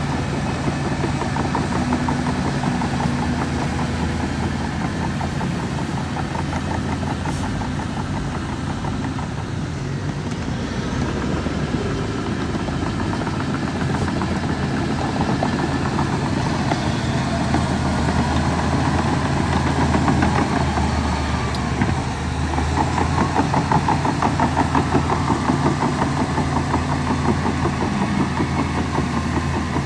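Heavy construction machine's diesel engine running steadily, with a clattering rumble. It grows a little louder for a few seconds about two-thirds of the way through.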